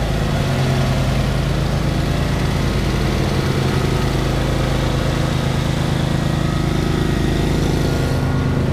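Lawn mower engine idling steadily at an even pitch, warming up so the oil runs out easily before an oil change.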